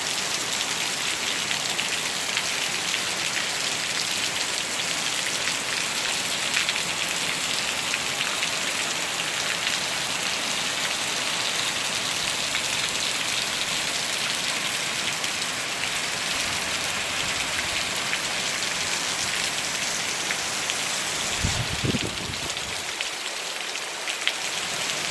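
Steady rain falling, an even hiss full of fine drop patter. About 21 seconds in a brief low rumble rises under it, and the rain eases slightly after.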